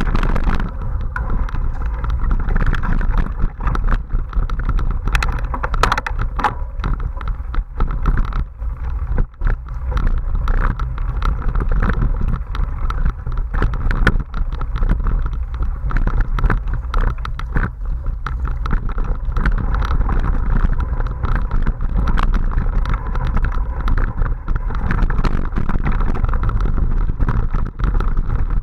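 Wind rushing over the microphone of a camera riding on a Giant XTC 27.5 mountain bike, with the bike rattling and clattering continuously as it runs over a bumpy dirt trail, many sharp knocks and clicks throughout.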